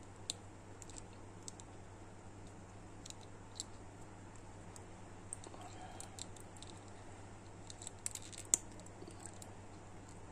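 Small plastic clicks and taps from the pieces of an action figure's arm being handled and pressed together at the joint, scattered irregularly, with a quick cluster of clicks about eight seconds in, the last and loudest of them a sharper snap.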